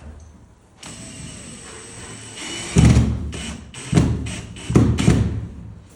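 Cordless drill driving a provisional screw into the ceiling: the motor whines steadily, then runs in several loud bursts as the screw bites.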